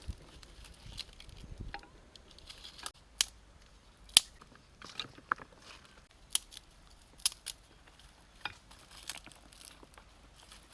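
About a dozen sharp, irregularly spaced clicks and crunches of hand work, the loudest about four seconds in.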